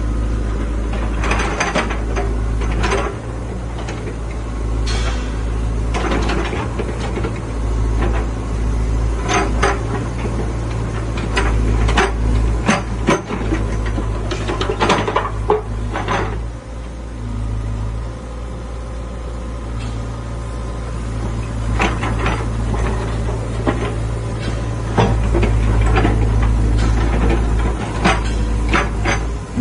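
Sany mini excavator's diesel engine running steadily under load while the boom, arm and bucket are worked hydraulically, with frequent sharp knocks and clanks as the arm and bucket move.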